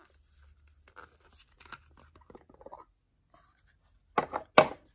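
A cardboard collector's box is handled and opened by hand, with light rustling and scraping of cardboard. Near the end come two sharp, louder scrapes as the clear plastic display case is slid out.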